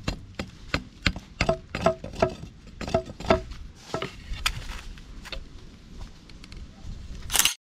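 Machete blade chopping and notching a wooden bow-drill fire board in quick, uneven strokes, about three a second, some strikes leaving a short ring. A louder rush of noise comes just before the sound cuts off near the end.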